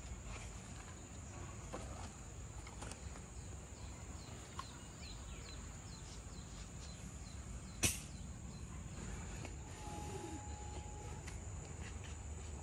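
Forest ambience: a steady high-pitched insect drone of cicadas or crickets, with a run of faint short bird chirps a few seconds in and one sharp click about eight seconds in.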